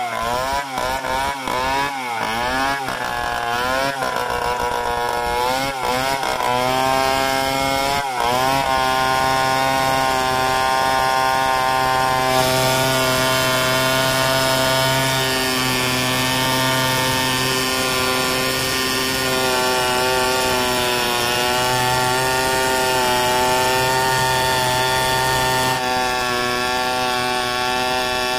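Two-stroke chainsaw ripping lengthwise through a mahogany log in a freehand milling cut. For the first several seconds the engine speed rises and falls again and again; from about eight seconds in it holds a steady high pitch under load to the end of the cut.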